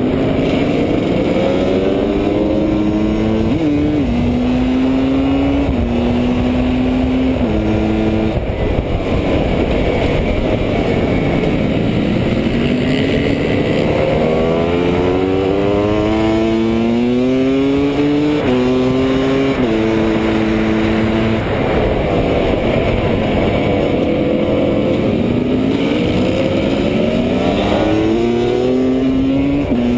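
Husqvarna WR300 two-stroke dirt bike engine at full race pace, recorded onboard. It revs up through the gears with sharp drops in pitch at each upshift, and falls away several times as the rider rolls off for corners before climbing again.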